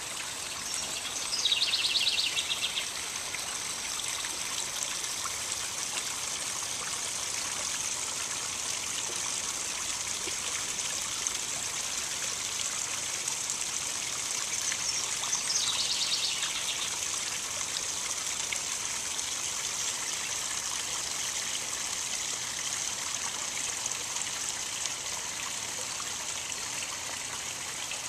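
Water trickling and splashing steadily down the small rock waterfalls of a backyard koi pond. A short, high, rapid trill cuts in twice, about two seconds in and again about fifteen seconds in.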